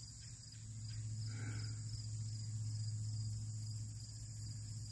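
Insects chirping steadily in a continuous high drone, over a low steady hum that swells a little from about a second in and eases off near the end.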